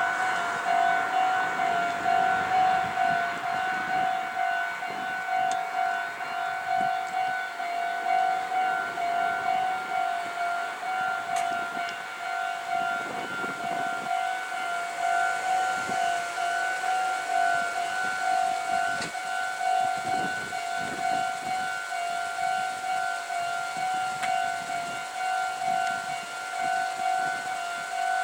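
Japanese railway level-crossing warning bell ringing: an electronic 'kan-kan' alarm that repeats evenly without a break, sounding while a train approaches the crossing.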